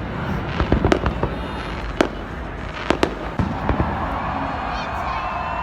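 Fireworks and firecrackers going off: about a dozen sharp bangs at irregular intervals over a steady background crackle of many more bursts.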